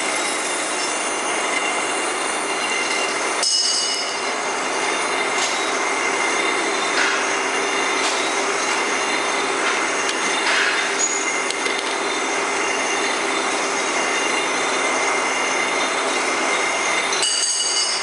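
Automatic glue labeling machine for bottles running: a steady mechanical clatter from the conveyor and labeling drum, with a faint steady whine.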